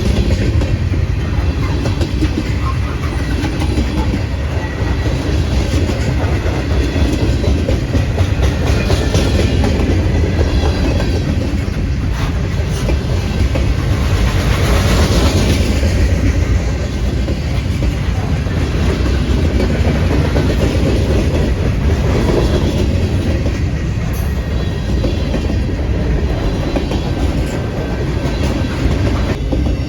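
Freight train cars rolling past: a steady rumble of steel wheels on rail with a clickety-clack of wheels over the joints, swelling briefly about halfway through.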